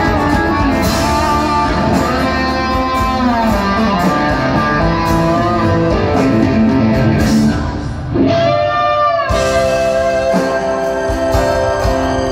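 Live rock band playing: an electric guitar lead with long, bending notes over bass, drums and strummed guitar, with a short stretch near the middle where the low end drops out under a wavering high guitar line.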